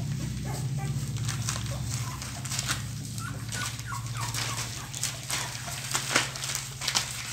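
Young boxer puppies crawling over each other, giving a few faint short squeaks and whimpers about three seconds in, with scattered rustles and clicks from the cloth beneath them over a steady low hum.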